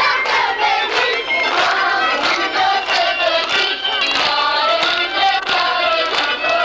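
Folk music: a group of voices singing together over a steady beat.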